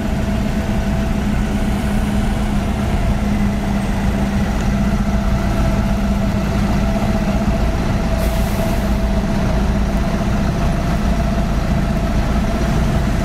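Heavy tank-transporter truck's diesel engine running steadily at low revs, close by. A brief hiss comes about eight seconds in.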